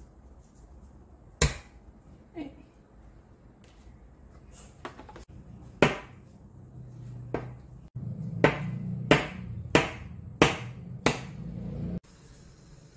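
Chef's knife cutting a block of tofu, the blade knocking on the cutting board at each stroke: a few scattered knocks, then a steady run of five chops about two-thirds of a second apart near the end.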